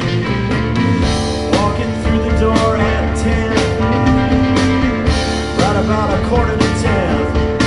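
Live rock band playing: electric guitar over bass and a drum kit, with regular drum and cymbal hits.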